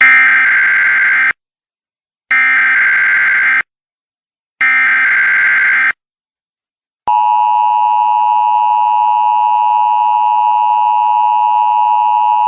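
Emergency Alert System broadcast header: three short bursts of warbling digital data tones, each about a second long with a second of silence between, then about seven seconds in the steady two-tone EAS attention signal starts and holds.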